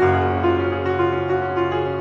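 Background instrumental music: a low bass note comes in at the start and is held under a melody of short notes changing about three times a second.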